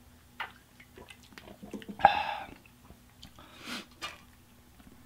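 A man drinking from a drink can, with small faint mouth clicks and gulps. About two seconds in comes a short, loud, throaty vocal sound from him after the drink, and a breathy exhale follows about a second and a half later.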